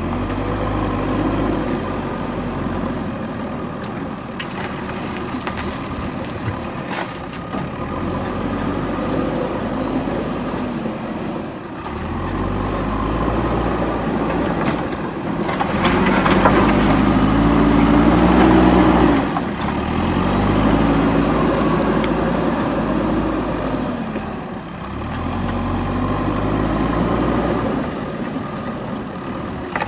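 Diesel engine of a backhoe loader running and revving repeatedly under work, its pitch rising and falling; it is loudest for a few seconds just past the middle.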